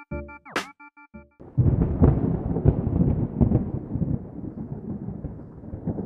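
A short synth keyboard phrase, cut through by a quick sweeping whoosh, gives way after about a second and a half to a sudden, long rolling rumble of thunder that slowly fades, a dramatic sound effect.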